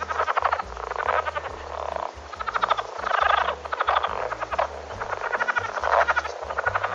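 Animal calls: rapid pulsed trills, repeated in bouts of about a second or two.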